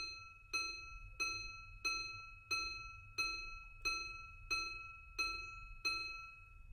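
Titanium ArtyA minute repeater chiming: its hammer strikes one gong about eleven times, evenly, roughly every two-thirds of a second, each ringing note dying away before the next. A single repeated tone like this is the repeater striking the hours.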